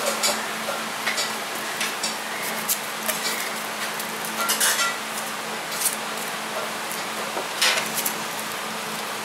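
Small kitchen knife and dry red-onion skins as onions are peeled by hand: irregular light clicks and crackles, the loudest a little before the end. A steady low hum runs beneath.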